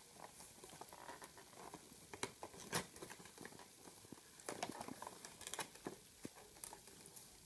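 Fingers picking and scratching at the edge of a cardboard webcam box to open it: faint scrapes with a few light taps and clicks scattered through.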